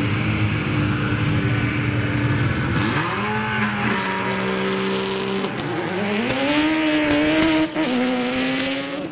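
Drag-racing car engines held at high revs on the start line, then accelerating hard, the pitch climbing and dropping back at each gear change, about three, five and a half and eight seconds in.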